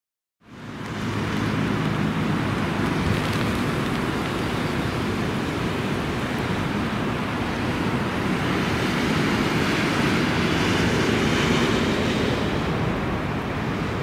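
Storm wind rushing over the microphone, with the jet engines of a Boeing 747-8F freighter on final approach beneath it. It fades in about half a second in and then holds steady.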